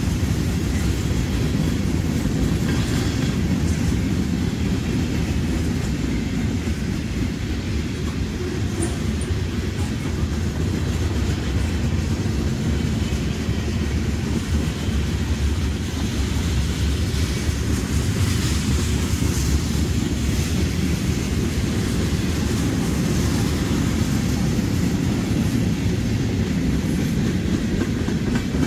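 CSX freight train cars rolling past on the rails, a steady low rumble of wheels on track.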